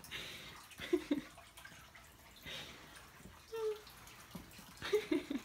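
A fabric blanket swishing and rustling as a Bengal kitten drags it over carpet and a rug, in several separate pulls, with a few short vocal sounds in between.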